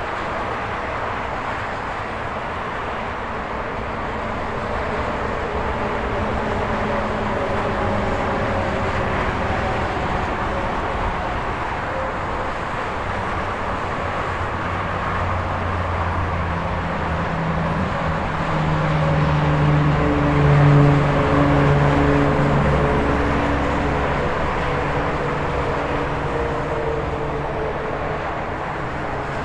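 Highway traffic: a steady rush of tyres and engines. A heavy truck's engine hum builds and is loudest about two-thirds of the way through as it passes.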